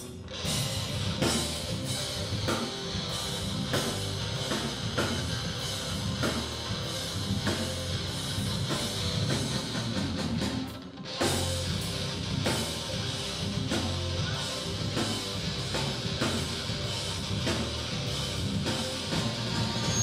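Live rock band playing: electric guitar, bass guitar and drum kit together. The band stops for about a second halfway through and crashes back in.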